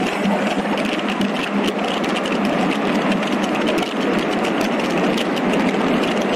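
Sea-Doo RXT-X 300 jet ski running at full throttle at high speed, its supercharged three-cylinder engine buried in a steady rush of water spray and wind. Wind and spray buffet the on-board camera microphone in many short hits.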